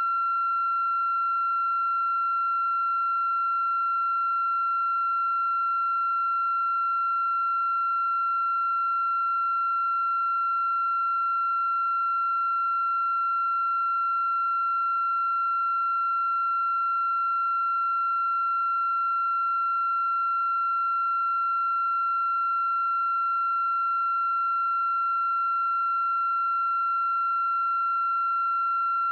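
A steady, unbroken electronic tone held at one high pitch, with fainter overtones above it.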